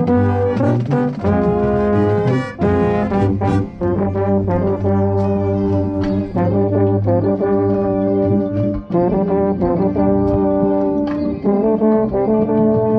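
High school marching band playing: brass chords with a marching baritone heard close by, changing every second or two, over sharp percussion hits.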